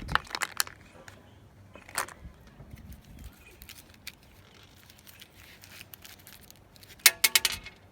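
Mentos candies being handled and worked out of their roll: scattered small clicks and rattles, with a quick cluster of sharp clicks near the end.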